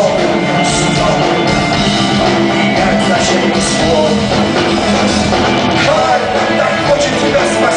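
A rock band playing live, with electric guitars, bass guitar and drum kit, recorded from within the crowd.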